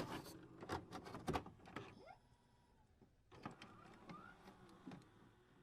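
Faint scattered clicks and knocks, with a sharp click at the start and two short rising squeaks.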